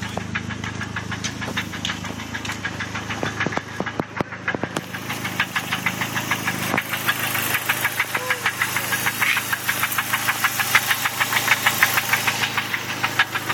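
Dodge SRT-4's turbocharged 2.4-litre four-cylinder engine running with a rapid, regular knocking that grows louder about halfway through. This is a rod knock, the sign of a worn or failing connecting-rod bearing.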